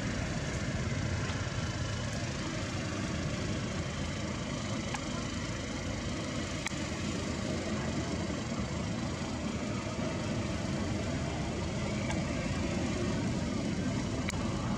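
Steady outdoor background noise, even in level throughout, with a few faint clicks and no monkey calls.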